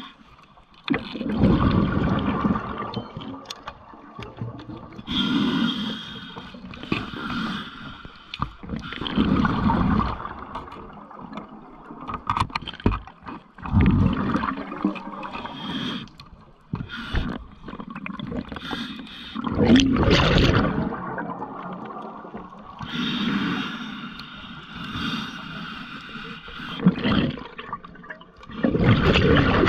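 Scuba diver breathing underwater through a regulator: each breath a hiss and a rush of exhaust bubbles, repeating about every four to five seconds.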